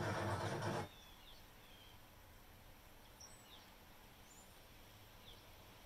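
A steady hiss that cuts off suddenly about a second in. Then near-silent room tone with a few faint, brief, high-pitched chirps scattered through it.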